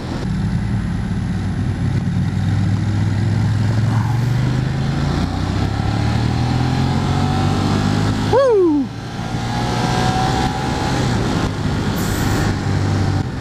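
Ducati Monster 1200R's Testastretta L-twin engine running under way, its pitch climbing slowly as the bike accelerates, with wind rush over it. About eight seconds in, a short, sharply falling tone cuts across and the level briefly dips.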